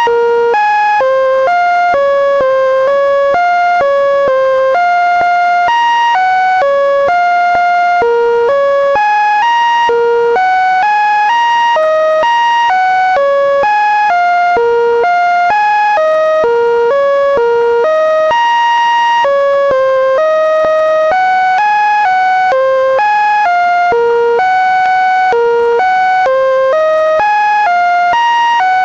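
Computer-generated electronic tones stepping from one steady pitch to the next, a few notes a second, in an unbroken stream: the Linux kernel's data played back as sound.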